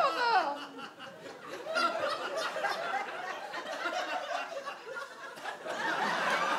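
A voice sliding down in pitch at the start, then a theatre audience laughing and chuckling, the laughter swelling near the end.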